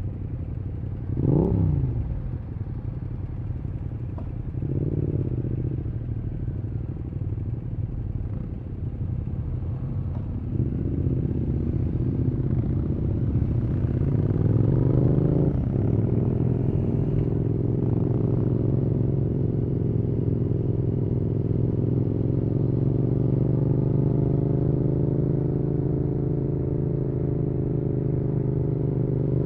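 Yamaha XSR700 parallel-twin running through an aftermarket IXRACE MK2 exhaust. A quick throttle blip comes about a second and a half in; later the revs climb for several seconds and drop at a gear change. It then settles into a steady cruise, the pitch rising and falling gently.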